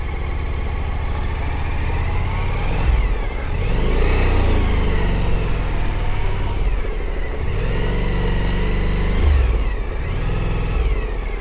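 Suzuki V-Strom adventure motorcycle's V-twin engine running and being ridden slowly, its revs rising and falling several times.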